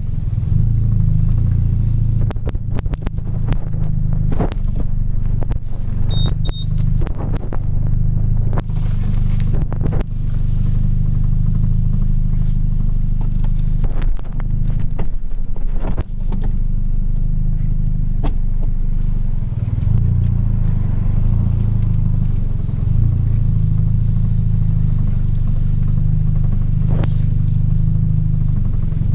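Straight-piped mk1 Audi TT 180's 1.8-litre turbocharged four-cylinder running, a steady low drone from the open exhaust, with scattered sharp clicks and knocks in the first part.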